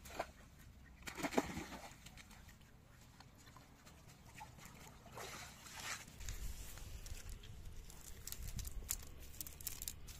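A wet cast net hauled out of the water, with a splash about a second in and another swish near five seconds. The net is then handled on the grass, with a run of light clicks and rattles near the end from its lead weights and mesh.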